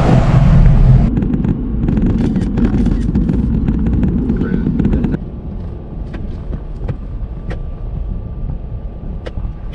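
A car or truck driving: a low rumble of engine and road noise heard from inside the cab, with scattered small clicks. It drops in level about five seconds in.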